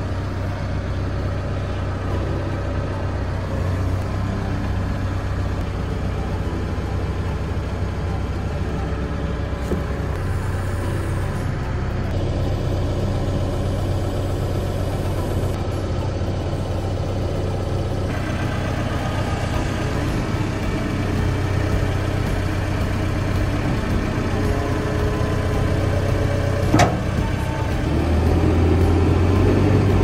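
Caterpillar backhoe loader's diesel engine running steadily, heard from the operator's cab while the boom, arm and bucket are worked. A single sharp knock comes near the end, and the engine grows louder in the last couple of seconds.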